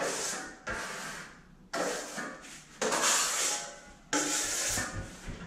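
Steel drywall trowel scraping joint compound on a hawk: five scraping strokes about a second apart, each starting sharply and fading out, as the trowel is cleaned and reloaded.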